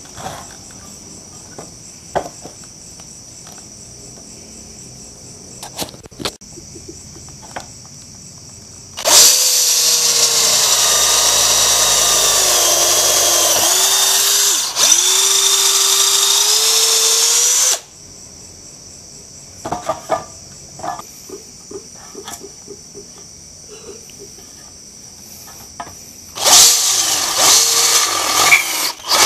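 Cordless drill boring into a metal bar in two runs, the first about nine seconds in and lasting about nine seconds, the second starting near the end. During the first run the motor whine sags in pitch as the bit bites into the metal, then rises again. Between the runs, crickets chirp steadily and there are a few small clicks of handling.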